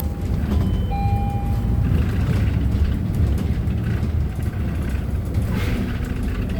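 Steady low rumble of a Hyundai New Super Aero City CNG city bus underway, engine and road noise heard from inside the cabin. A brief thin beep sounds about a second in.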